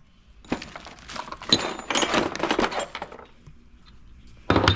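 Small metal reloading parts clinking and knocking together as they are rummaged through and handled in a parts drawer: a quick run of clicks and clinks, then a single sharper knock near the end.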